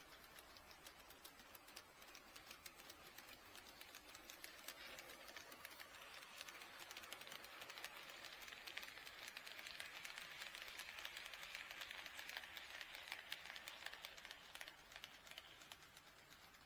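HO scale model steam locomotive train running on sectional track: a quick run of small wheel clicks over the rail joints, with a hissing running noise that grows louder from about five seconds in and fades again near the end as the train passes.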